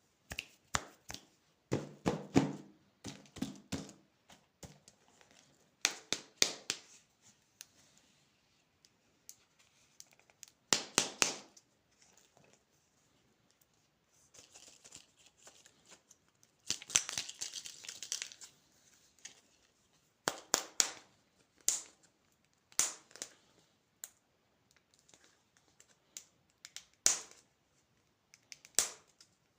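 Plastic candy wrappers crinkling and tearing open in short bursts, with sharp clicks and snaps between them and one longer crinkling stretch about two thirds of the way through.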